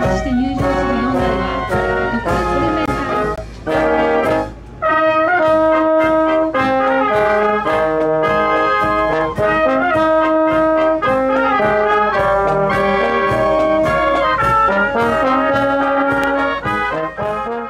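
A police brass band playing a march, with trumpets and trombones holding sustained notes, broken by a brief pause about three and a half seconds in before the music resumes.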